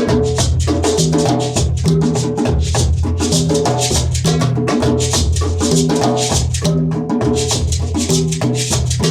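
Music with a moving bass line and busy shaker-and-drum percussion keeping a steady beat.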